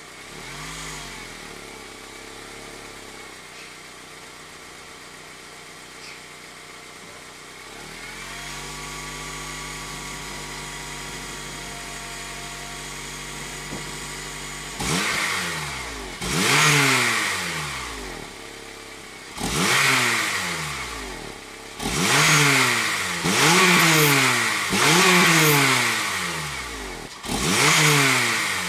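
Honda Civic Type R EP3's four-cylinder K20A engine on its stock exhaust, idling while warming up, the idle stepping up slightly about eight seconds in. From about halfway, six or seven quick throttle blips, each rev climbing sharply and falling back to idle.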